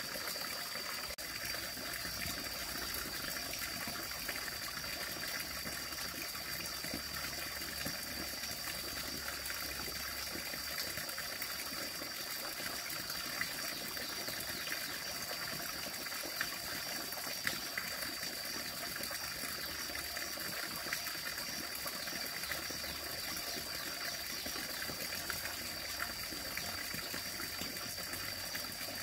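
Steady rush of flowing water, with a thin high steady tone above it and a couple of faint clicks midway.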